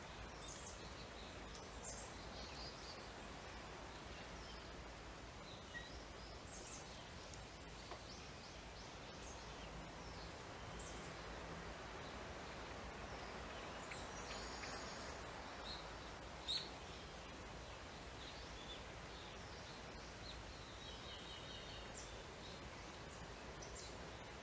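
Faint birds chirping here and there over a steady background hiss, with one sharp click about sixteen seconds in.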